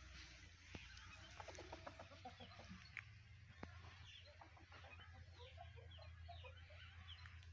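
Faint hen clucking in short runs, with small birds chirping and a few light ticks over a low steady hum.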